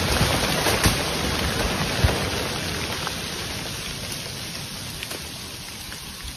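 Debris from a plastic-explosive blast falling back onto the ground and foliage: a rain-like hiss that slowly fades, with a couple of sharp ticks from larger pieces landing about one and two seconds in.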